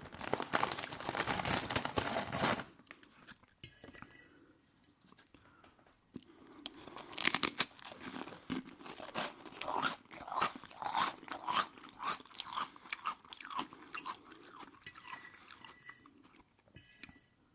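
Close-miked eating sounds: a loud, crunchy bite for the first two and a half seconds, a lull, then steady chewing from about six seconds in.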